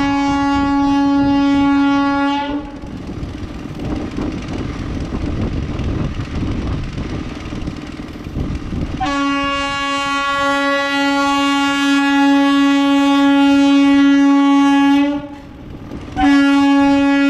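Vande Bharat Express trainset sounding its horn in long single-pitched blasts: one ending about two and a half seconds in, a six-second blast from about nine seconds in, and another starting near the end. Between the blasts the train rumbles along the track as it approaches.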